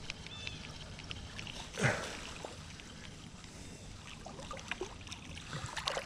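Shallow creek water running steadily, with one brief louder noise about two seconds in and scattered small clicks.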